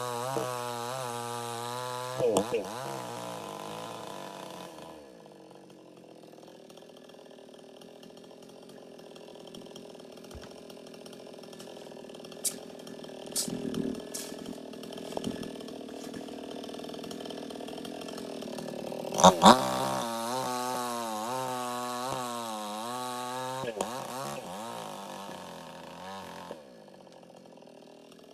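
Chainsaw engine revving with a wavering pitch, dropping to a low idle about five seconds in, with a few sharp clicks. It revs up again after a loud knock about two-thirds of the way through, then drops back near the end.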